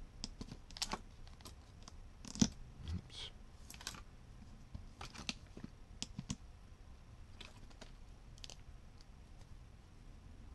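Irregular light clicks and taps of a pair of large pliers being set down and shifted about on a small circuit board, the loudest tap about two and a half seconds in.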